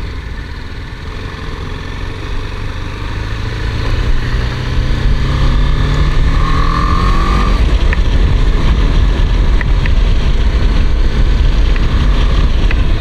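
BMW G 310 GS's 313cc single-cylinder engine pulling away and accelerating, its pitch rising steadily for a few seconds as it gets louder, then running on at speed with a loud low rumble.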